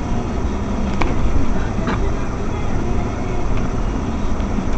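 Car interior noise while driving slowly: a steady low rumble of engine and road, with a sharp click or rattle about a second in and another about two seconds in.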